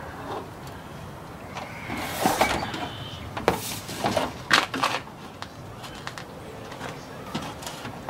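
A cluster of scrapes and knocks from someone handling parts at a pickup's tailgate, about two to five seconds in.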